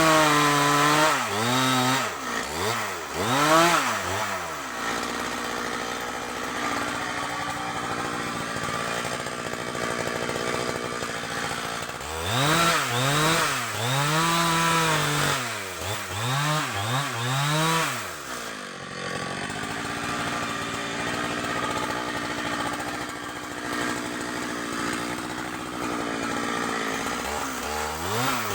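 Two-stroke chainsaw working on a kapok tree. It revs up and down in quick surges near the start and again about halfway through, and between the surges it runs at a steady pitch for several seconds at a time.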